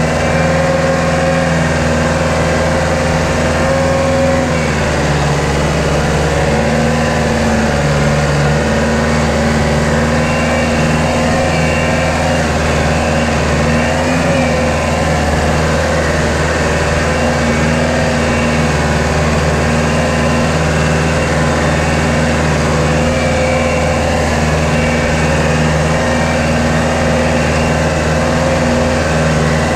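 Compact tractor's diesel engine running steadily, heard close up from the driver's seat as the tractor drives along.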